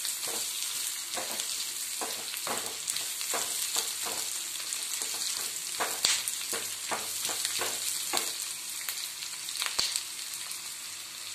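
Sliced onion sizzling as it light-fries in oil in a kadai, with a spatula stirring and scraping through it in repeated strokes; two sharper knocks of the spatula stand out, about six seconds in and near the end.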